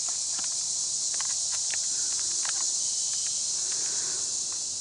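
Steady, high-pitched chorus of insects such as crickets, with scattered light clicks and crackles over it.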